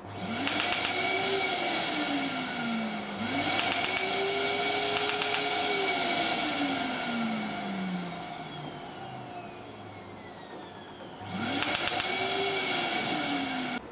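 Asclepion MCL30 DermaBlate erbium laser system firing fractional scan passes on facial skin: three bursts of a mechanical whir whose pitch rises and then slowly falls, with rapid even clicking near the start of each burst. The second burst is the longest.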